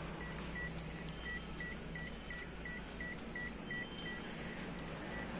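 Daihatsu Terios interior warning buzzer beeping fast and faintly, about three short high beeps a second, with a brief pause near the end. This is typical of the key-in-ignition reminder sounding while a door stands open.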